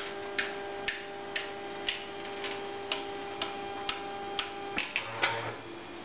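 3D printer's stepper motors giving a steady whine with sharp ticks about twice a second. Near the end the whine cuts off, followed by a few clicks and a short low buzz.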